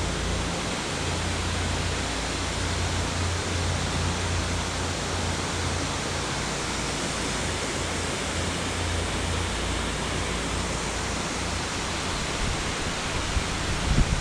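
Steady rush of river water, an even hiss that holds the same level throughout, with a brief low rumble just before the end.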